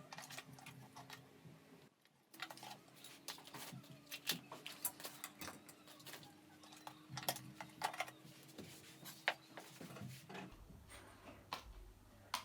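Light, irregular clicks and taps from handling a small plastic Bluetooth speaker and tools during a repair, faint, over a low steady hum.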